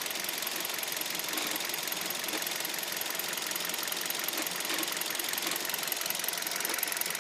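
Hyundai Solaris engine running steadily with a fast, even ticking over it: the unexplained extra noise the owner is trying to trace.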